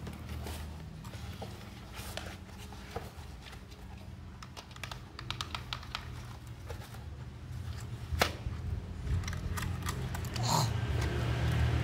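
Hard plastic of a toy drone and its remote controller being handled: scattered light clicks and taps, with one sharper click about eight seconds in. A steady low hum runs underneath.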